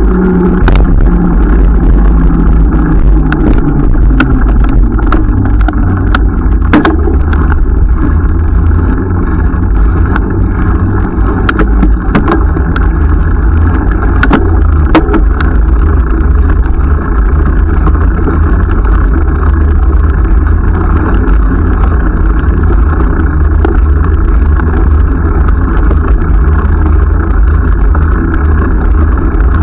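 Steady, loud low rumble of wind and road noise on the camera of a moving bicycle on a dusty road, with scattered sharp clicks and ticks, most of them in the first half.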